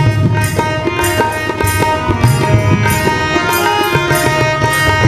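Harmonium and tabla playing an instrumental interlude in a Hindi bhajan: held harmonium notes over a running tabla rhythm with deep bass strokes.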